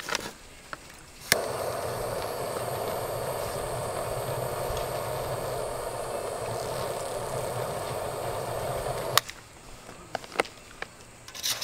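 Handheld butane torch clicked on about a second in, its flame blowing steadily into a kamado grill's bottom vent to light lump charcoal, then shut off with a click near the end.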